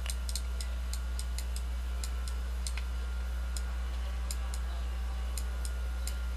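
Steady low electrical hum with light, irregular clicks a few times a second: a pen stylus tapping on a drawing tablet as letters are written stroke by stroke.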